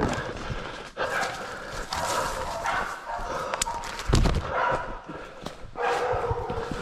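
Pig-hunting dog barking repeatedly, a bark or two a second, a dog bailing a boar. Two heavy bumps on the microphone, at the start and about four seconds in, are the loudest sounds.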